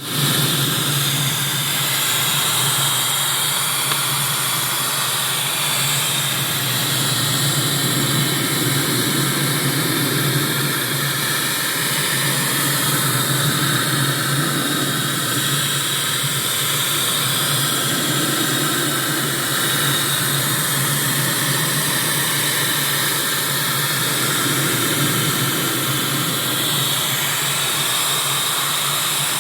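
Steady machine noise: a constant low hum under a broad, even hiss, with no change or break.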